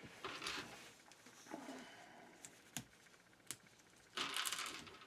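Plastic LEGO Technic pieces being handled and pressed together: faint rustling with a few sharp clicks, and louder rustling near the end.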